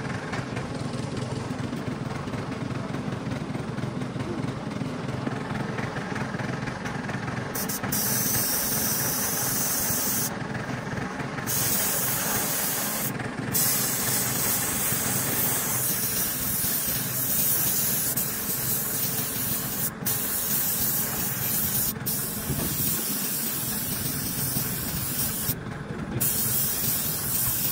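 A loud, high spray hiss that starts about eight seconds in and cuts out briefly three times, like a trigger being released. Under it runs a steady lower mechanical noise.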